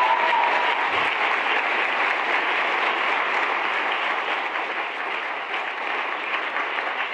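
Large seated audience applauding, a dense, steady clapping that eases off slightly toward the end.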